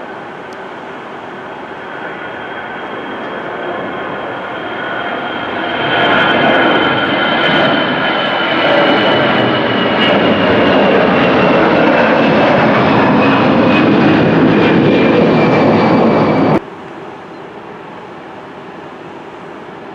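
Jet airliner's engines passing close, the noise building over several seconds to a loud, steady level, with a high whine slowly falling in pitch. It cuts off suddenly about three-quarters of the way through, leaving a quieter steady background noise.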